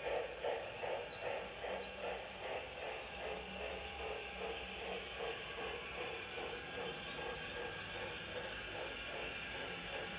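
G-scale model steam locomotive running on garden railway track, giving a steady rhythmic beat of about three pulses a second that grows fainter after the first couple of seconds.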